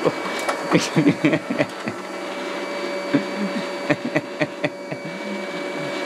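CleanMate QQ-2 robot vacuum running, a steady motor whine with scattered clicks and knocks as it works its way around, its vacuum section working normally.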